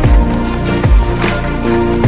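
Background music: sustained chords over a steady beat of deep drum hits.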